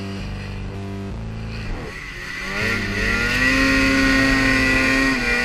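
Snowmobile engine running, then revving up about two seconds in with a rising pitch and holding at high revs while riding through deep powder.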